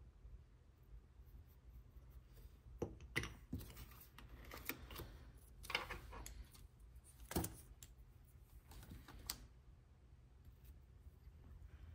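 Light clicks, taps and brief scrapes of nail stamping tools handled on a metal stamping plate, scattered over several seconds and sharpest around three, six and seven seconds in, over a faint steady low hum.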